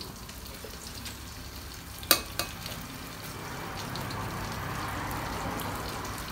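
Battered mushrooms sizzling steadily as they fry in oil in a wok, the sizzle growing a little louder from about three seconds in, with one sharp clack about two seconds in.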